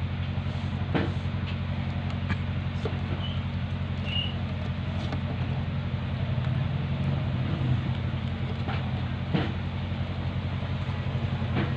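A steady low motor hum runs throughout. Over it come a few sharp knocks and rustles from a young monkey rummaging in a nylon backpack, the clearest about a second in and near the end.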